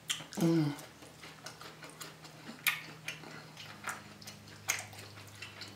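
Close-up eating sounds: scattered sharp wet mouth clicks while chewing food, with a short falling "mm" hum about half a second in.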